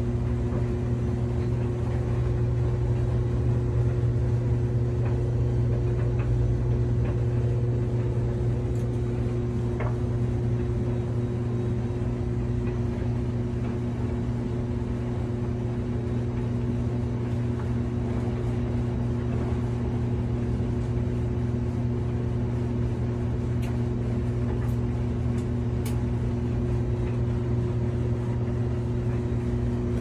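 Front-loading washing machine running a wash cycle: a steady low hum from its motor and drum, with a few faint clicks.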